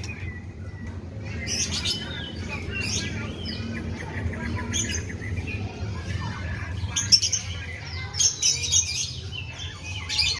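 White-rumped shama (murai batu) singing a varied run of short chirps and whistled phrases, a song style kept to imitate the sooty-headed bulbul (kutilang), over a low steady hum.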